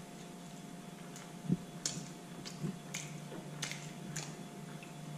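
A person chewing food close to the microphone, with wet mouth clicks and smacks about every half second from about two seconds in, over a steady low hum.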